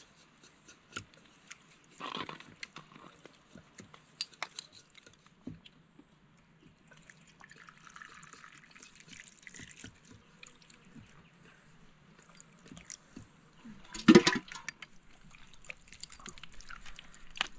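Metal spoon clicking and scraping against a plastic bowl of boiled fish, then broth poured from a pot into the bowl for a few seconds, with a single loud knock near the end.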